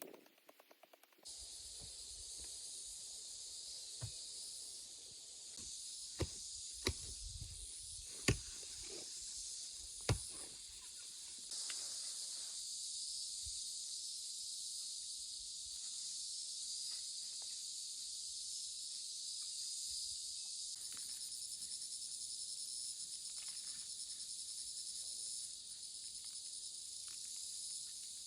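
Steady high-pitched buzzing of an insect chorus, with a few sharp knocks in the first ten seconds; about two-thirds through, the buzz turns to a fast pulsing.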